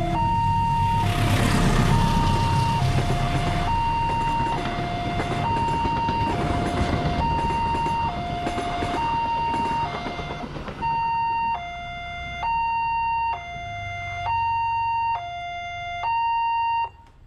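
Electronic level-crossing siren alternating between a lower and a higher tone, each held just under a second. A passenger train passes through the crossing, its wheel and carriage noise filling the first ten seconds or so. After the train clears, the siren goes on alone and cuts off suddenly near the end.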